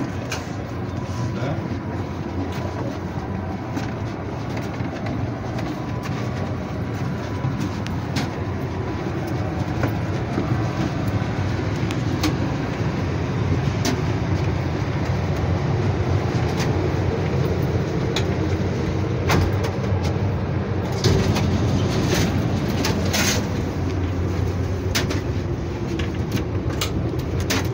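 Steady low rumble and hum inside a passenger railcar, with scattered sharp clicks and knocks, a cluster of them about two-thirds of the way through.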